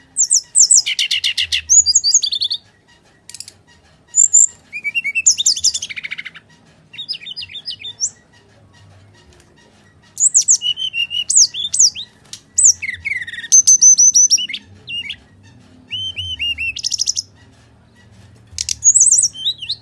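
Brown-chested jungle flycatcher singing its full 'fighting' song: loud phrases of high whistles, sliding notes and rapid trills, each a second or two long, repeated with short pauses between them.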